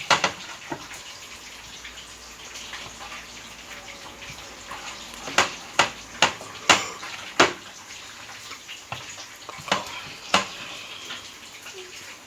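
Steady low hiss in a kitchen, broken by about eight sharp clinks and knocks of utensils against a dish, most of them bunched in the middle.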